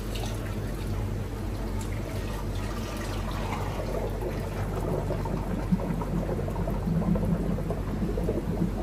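Thick liquid gelato mix pouring from a stainless-steel jug into the barrel of a gelato batch freezer, over a steady low machine hum.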